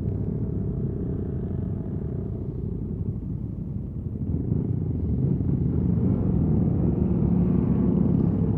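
Motorcycle engine running steadily on the move, getting louder and pulling harder from about halfway through.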